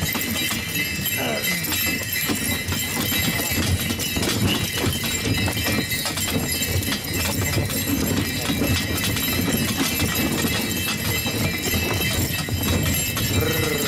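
A pair of horses pulling a sleigh over snow, hooves beating with the steady rushing rattle of the runners and harness.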